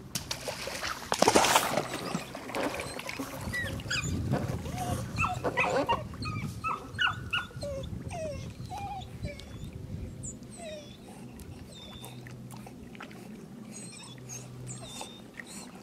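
Puppy whining in many short, high whimpers while a littermate swims to retrieve a training bumper in a pond, with a burst of splashing about a second in.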